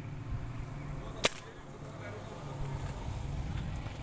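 A single shot from a suppressed air rifle: one short, sharp crack about a second in, over a steady low hum.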